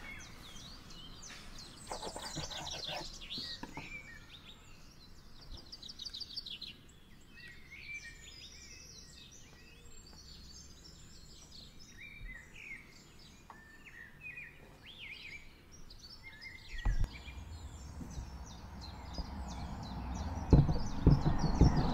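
Small birds chirping and twittering throughout. Near the end come soft rustling and several dull thumps as dough is folded and pressed on a wooden board.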